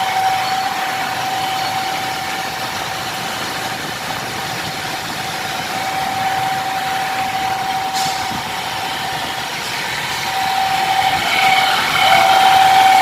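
Hyundai Santa Fe drivetrain running at speed with a steady whining hum that fades and comes back over a few seconds. It is the humming noise that the mechanic traces to a worn bearing inside the transfer case.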